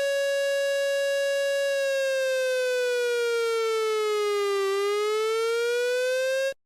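Electronic emergency-alert siren tone, buzzy and rich in overtones. It holds steady, then glides slowly down in pitch about two-thirds of the way through, rises back up, and cuts off abruptly.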